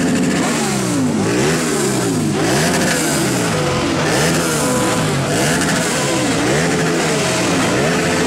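Several motorcycle engines revving together, their pitches rising and falling again and again in overlapping sweeps.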